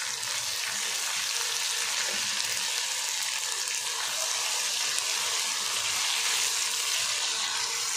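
Sliced onions and ginger-garlic paste frying in hot ghee in a wok: a steady sizzle while they are stirred with a spatula.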